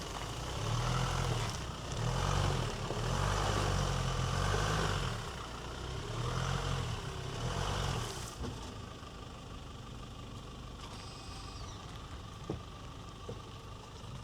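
Rely R8 pickup's engine revving in repeated surges as it works over rough ground for about eight seconds, then dropping to a quieter steady run. A single sharp click comes near the end.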